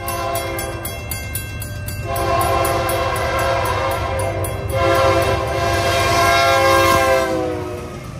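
Nathan Airchime K3L five-chime horn on a CN freight locomotive sounding for a grade crossing: a short blast, then two long blasts, the last dropping in pitch as the locomotive passes close by. A steady train rumble runs underneath.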